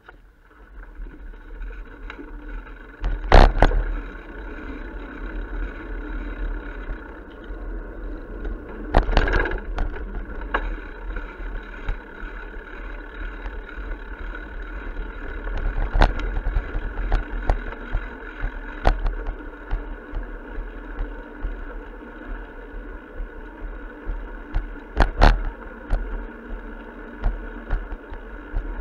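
Steady rolling noise of a bicycle picked up by a camera mounted on the bike, with sharp knocks and rattles each time the bike jolts over bumps and pavement joints, about five times.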